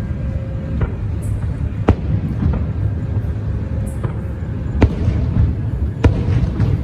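Fireworks shells bursting: five or six sharp bangs at irregular gaps of about a second, over a continuous low rumble.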